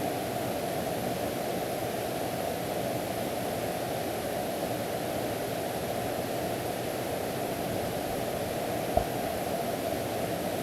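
Mountain valley stream rushing steadily in the rain. A single short tap sounds about nine seconds in.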